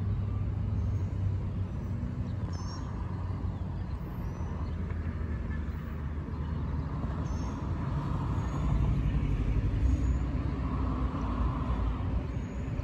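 Steady low rumble of distant vehicles, getting a little louder from about halfway through, with a few short high bird chirps above it.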